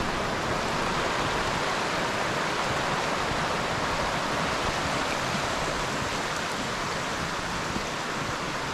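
A fast river rushing over rocks and rapids: steady, even whitewater noise close by.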